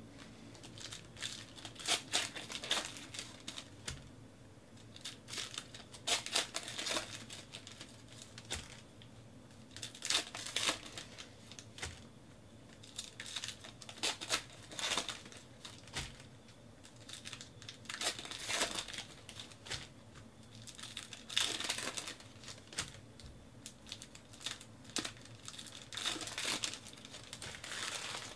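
Paper trading-card pack wrappers being torn open and crinkled by hand, one 2018 Panini Classics football pack after another, in crackly bursts about every four seconds.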